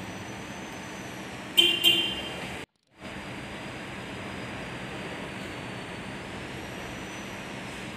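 Two quick ringing metallic clinks, a fraction of a second apart, over a steady background hiss; the sound drops out completely for a moment just after.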